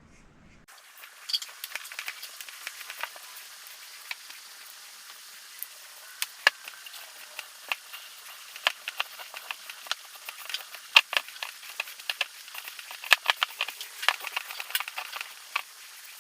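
Light, irregular clicking and crackling over a faint hiss: a new rubber window scraper being worked into its metal door-trim channel by hand.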